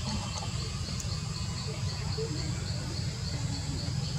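Insects chirping in a steady, even rhythm of about three to four pulses a second over a continuous high trill, with a steady low rumble underneath.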